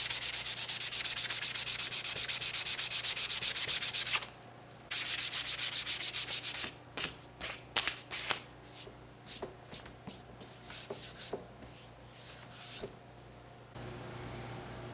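Hand sanding of a cypress wood slab: quick back-and-forth strokes, about five a second. The strokes pause briefly about four seconds in, start again, then slow into scattered single strokes that die away near the end.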